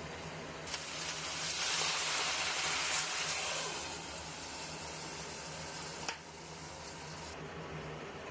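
A loud hiss swells about a second in and dies away by about four seconds. A sharp click comes near six seconds. A steady low hum runs underneath.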